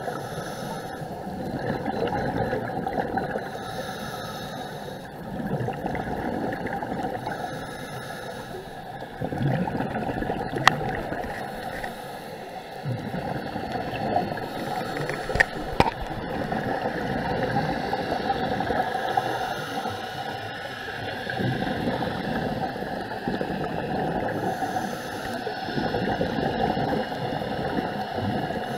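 Scuba regulator breathing heard underwater through a camera housing: exhaled bubbles rush up in slow surges every three to four seconds, with a few sharp clicks in the middle.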